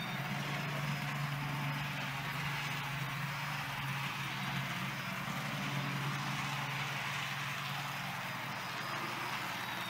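HO scale Tyco 'General' model steam locomotive, repowered with a coreless motor and flywheel, running smoothly around the track. It gives a steady low hum with an even hiss.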